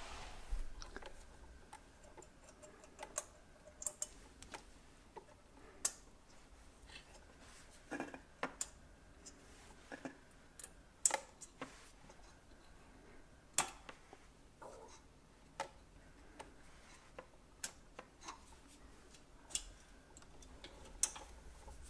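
Irregular light clicks and taps, a couple of dozen, as a wooden toothpick prods and flips the small hinged parts on the front of a brass 1:32-scale model steam locomotive. A few louder clicks come around the middle.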